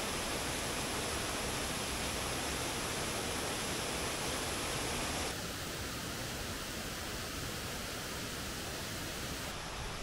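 Mountain stream rushing down a small waterfall over mossy boulders, a steady, even rush of water. The stream is running full after the rainy season. About five seconds in the sound changes and becomes a little softer and more distant.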